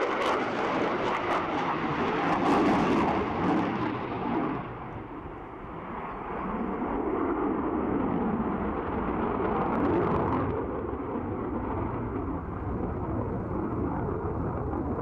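Jet aircraft flying past: a steady rushing engine noise that dips about five seconds in and swells again.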